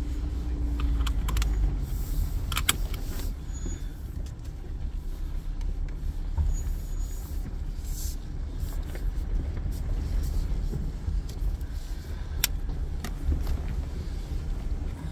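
Low, steady rumble of an off-road vehicle driving slowly over a rough dirt trail, heard from inside the cabin, with scattered clicks and rattles from the bumps.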